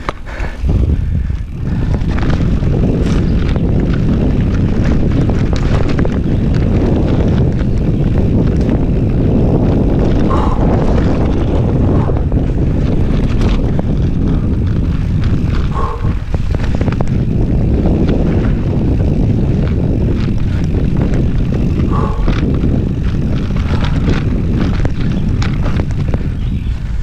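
Wind rumbling on the microphone of a mountain bike being ridden fast, with the tyres and bike rattling over rough ground and scattered sharp knocks throughout.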